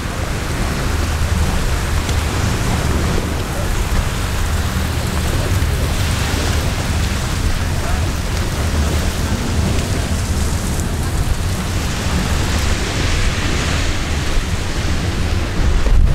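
Wind buffeting the microphone: a heavy, uneven low rumble under a steady rushing noise that swells about six seconds in and again about thirteen seconds in.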